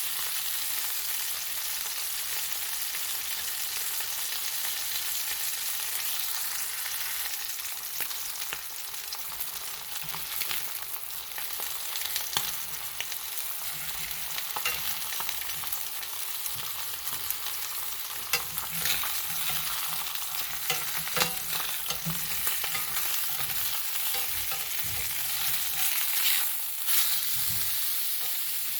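Boneless, skinless chicken thigh frying in oil in a pan: a steady sizzling hiss with fine crackle. A few sharper pops and knocks come in the second half.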